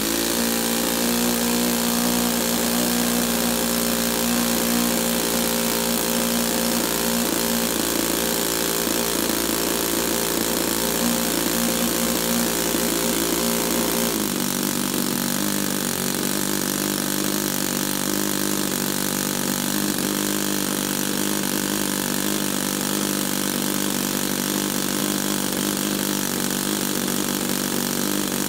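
Saito FA-62B four-stroke glow model-airplane engine spun by an electric starter and catching, then running steadily at a fast idle of about 6,000 rpm while it warms up before carburetor adjustment. Its tone shifts abruptly about halfway through.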